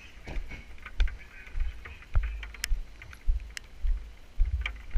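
Footsteps on a wet road, about two a second, each with a dull thud and a short click as a camera-carrying person walks, over a faint hiss of rain.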